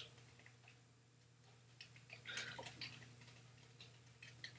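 Faint, irregular keystroke clicks from typing on a computer keyboard, with a louder cluster of keystrokes about halfway through.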